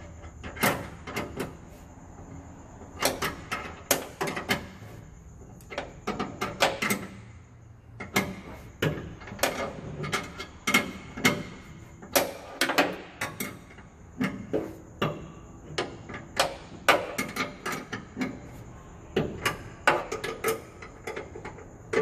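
Metal clicks and knocks in short, irregular bursts: a wrench and bolts being worked to fasten a padlock bracket inside a van door.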